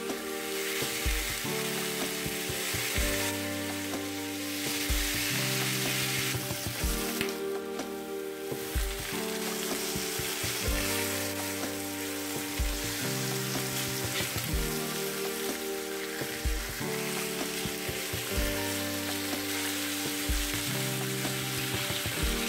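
Pork belly strips sizzling in fat in a nonstick frying pan, with the odd scrape as they are turned over with a fork. Background music plays underneath.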